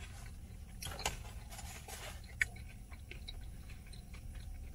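A person chewing a mouthful of crispy fried egg roll with the mouth closed: soft, irregular crunches and small clicks, a couple of them sharper, over a low steady hum.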